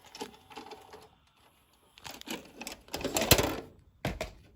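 Sony SLV-D370P DVD/VCR combo's mechanism making irregular bursts of mechanical clattering and whirring, loudest about three seconds in. This is the unexplained noise that the player makes while it still plays discs.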